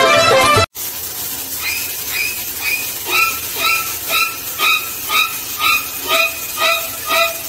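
Shower water spraying with a steady hiss, over a short pitched note that repeats about twice a second.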